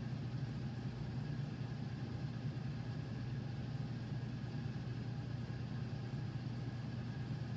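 Steady low hum of running laboratory equipment, unchanging throughout.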